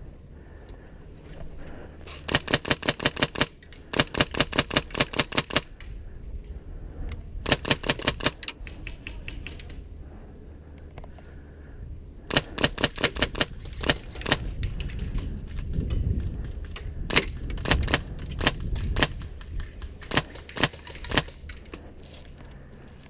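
Airsoft guns firing rapid full-auto bursts of sharp clicking shots, about a dozen a second. There are several bursts of one to two seconds in the first half, then shorter bursts and single shots near the end.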